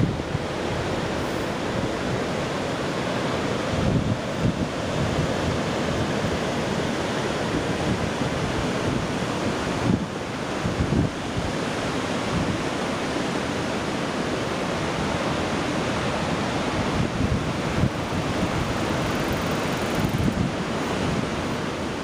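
Pacific Ocean surf breaking steadily in a continuous wash of white water, with wind buffeting the microphone in low gusts.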